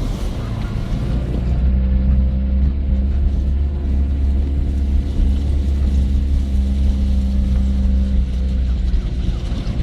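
SsangYong Korando's engine running at a steady speed, a deep even drone.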